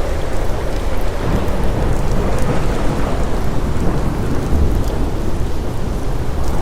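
Steady rain with a continuous deep rumble underneath, and faint scattered crackles from a fireplace.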